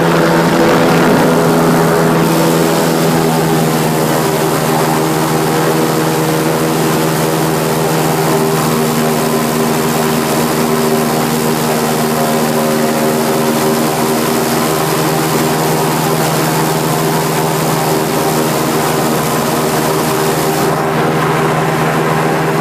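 Airboat's engine and caged air propeller running at speed, a loud steady drone with a strong low hum.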